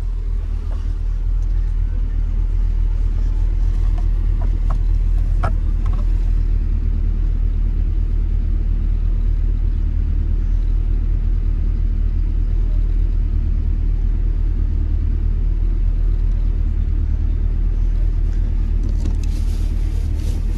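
Tofaş Şahin engine idling steadily with a low rumble through its side-exit exhaust, heard from inside the car's cabin. A few light clicks sound about four to five seconds in.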